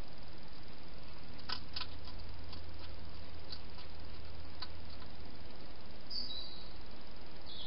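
Steady hiss and low hum from a night-vision garden camera's microphone, with a few faint clicks in the first half. Near the end come two short high chirps, each falling slightly in pitch.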